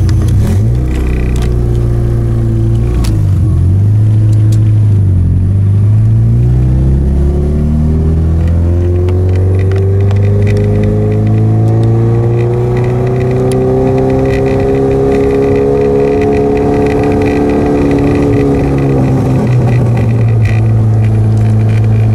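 2004 Mitsubishi Lancer Ralliart's four-cylinder engine, heard from inside the cabin, pulling away from a stop. The revs rise, dip briefly about three seconds in, then climb slowly for over ten seconds, and drop back to a steady note near the end.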